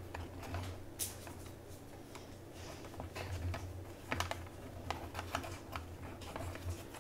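Light, irregular clicks and taps of thin wooden kit pieces being handled as a rubber band is slid onto a catapult's launcher arm and worked into its notches, over a low steady hum.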